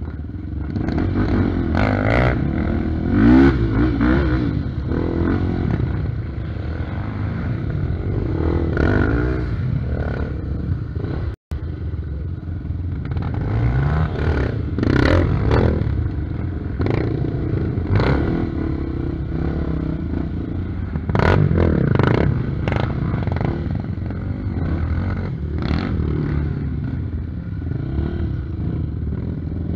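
Trail motorcycle engines revving up and down in short bursts over rocks and roots: mainly the Honda XR 250 Tornado built up to 300 cc, a single-cylinder four-stroke, with another dirt bike passing close at the start. Repeated clatter and knocks come from the bikes jolting over rocks, and the sound cuts out for an instant about a third of the way through.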